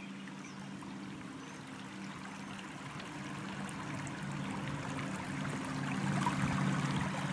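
Electric trolling motor humming steadily, with water rushing and lapping around a small barrel pontoon boat, growing louder as the boat comes closer.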